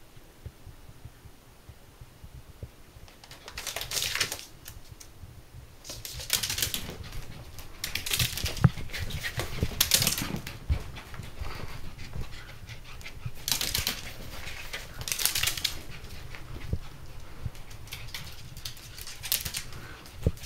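Miniature dachshund scampering about on a wooden floor: quick light clicks and pattering of its paws and claws, with several short rushes of noise a few seconds apart.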